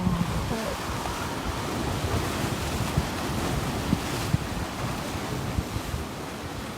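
Mediterranean sea surf rushing steadily, with wind buffeting the microphone.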